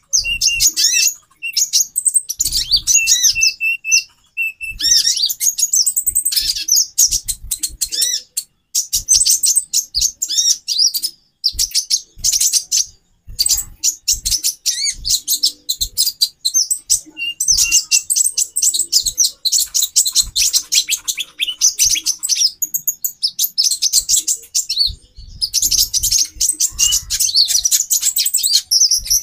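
Female konin (kolibri ninja) birds chattering together, several at once: dense, rapid high-pitched chirps and twitters, broken only by short pauses.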